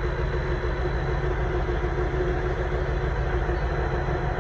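Passenger train's engine running steadily at close range: a low, even hum with a constant mid-pitched tone.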